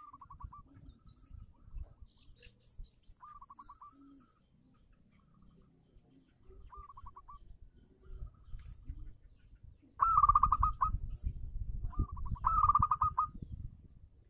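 Zebra dove (perkutut) calling: about five short, rapidly pulsed trilling coos, spaced a few seconds apart and louder near the end. Under them is a low rumbling noise, with a few faint high chirps from small birds.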